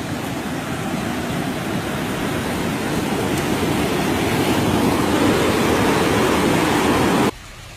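Floodwater rushing, a steady wash of water noise that builds slightly and then cuts off suddenly near the end, leaving a fainter hiss.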